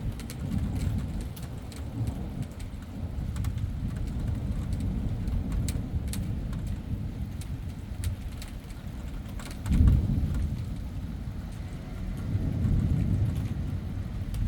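Thunderstorm: thunder rumbling low and continuously over rain, with a sharp louder surge about ten seconds in and another swell near the end. Faint ticks of raindrops come through on top.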